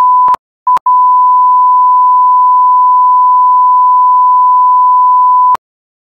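Electronic beep tone, a pure steady pitch near 1 kHz: a short beep, a second very short one, then one long unbroken beep held for about four and a half seconds that cuts off suddenly, with a click at each start and stop.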